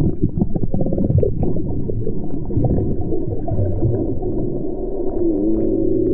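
Muffled underwater sound from a submerged GoPro: a steady low rumble of moving water with many small clicks and crackles through it, and a wavering muffled tone near the end.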